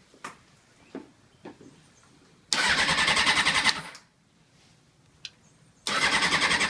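A few light clicks, then a 2001 Honda CBR600 F4i's starter motor cranking the engine in two bursts of a second or more each, turning over rapidly without catching. The bike won't start, and the owner no longer hears the fuel pump prime.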